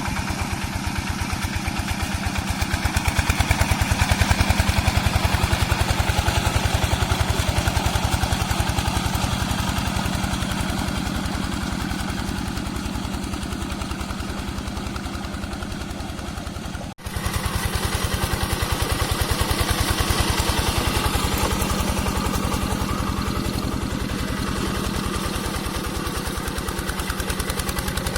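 Yanmar TF85 single-cylinder diesel engine on a Quick G1000 two-wheel hand tractor, running steadily with a fast, even putter while the tractor harrows a wet rice field. The sound breaks off for an instant about seventeen seconds in, then the engine carries on.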